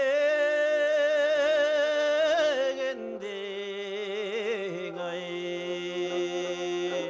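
Kazakh song sung with kobyz accompaniment: the kobyz is a two-stringed bowed fiddle with horsehair strings. The voice holds one long note with vibrato, breaks off about three seconds in, and moves to lower wavering notes over a steady low held tone.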